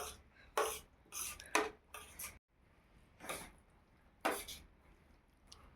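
Metal dishes and utensils clinking and scraping in a run of short, irregular clatters, broken by a brief gap about two and a half seconds in.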